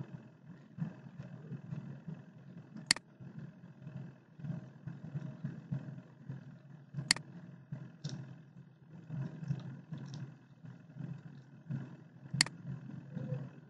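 Three sharp computer mouse clicks, about four to five seconds apart, over a steady low rumble and hum.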